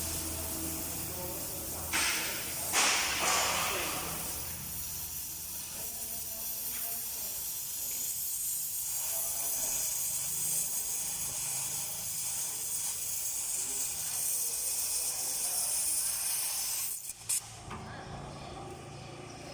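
A steady hiss, with two short louder bursts in the first few seconds; it cuts off suddenly about seventeen seconds in, leaving a quieter background.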